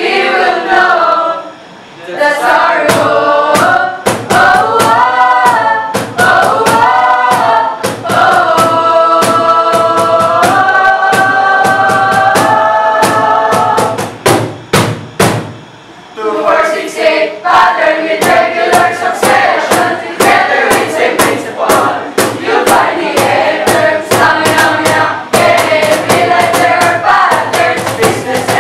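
A group of young voices singing a chant-like song together over a steady percussion beat. In the middle they hold long chords, then the sound drops briefly before the singing and beat pick up again.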